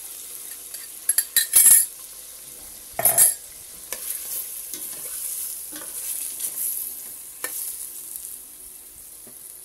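Beef and sauce sizzling in a steel pot as an annatto and kare-kare mix is scraped in from a jar and stirred with a metal spoon. A few sharp knocks of the spoon come between one and two seconds in and again at about three seconds, followed by softer stirring.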